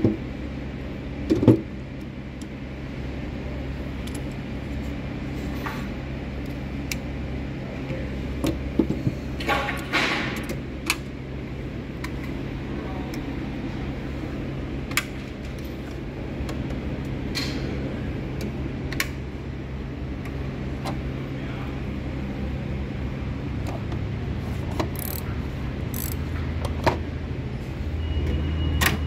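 Metal hand tools clinking and rattling as they are handled in a toolbox drawer, and toolbox drawers being slid open and shut. There are scattered sharp clinks, with a short cluster about a third of the way in, over a steady low background hum.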